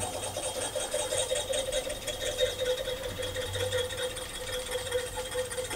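Fly-tying thread pulled from a bobbin and wrapped around a wire stinger shank, making a steady whirring hum that stops near the end.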